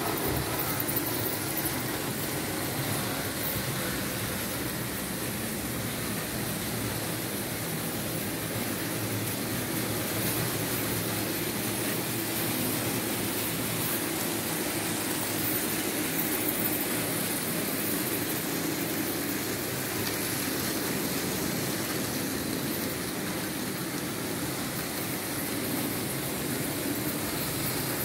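Märklin H0 model trains running on the layout's metal track, a steady rumble of wheels and electric motors that holds even throughout.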